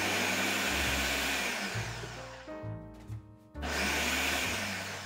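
Food processor pulsing black-eyed peas: the motor whirs for about two and a half seconds, stops, then starts again about a second later.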